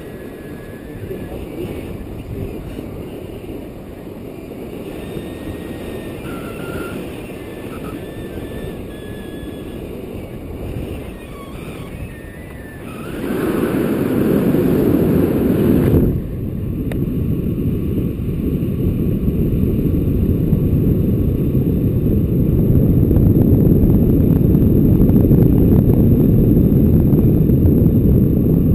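Wind rushing over the microphone of a camera mounted on a tandem paraglider in flight, a low, steady rushing noise that grows louder about thirteen seconds in and shifts abruptly about three seconds later.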